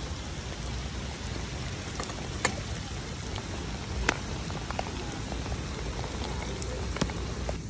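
Light rain falling steadily, an even hiss with scattered sharp ticks of drops, three of them louder than the rest.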